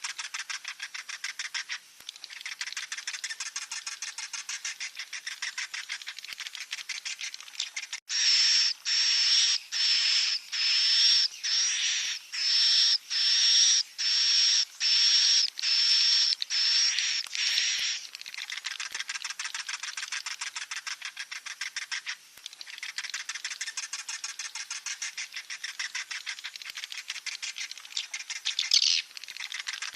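Swiftlet chicks calling: a continuous rapid, high chirping. Between about 8 and 18 seconds in, it is overlaid by about a dozen louder, drawn-out high calls in quick succession.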